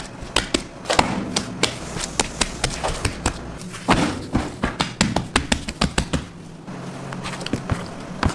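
Irregular sharp taps and clicks, a few a second, of dough and a plastic dough scraper being worked on a stainless steel bench. Under them a low machine hum cuts out about three and a half seconds in and faintly returns near the end.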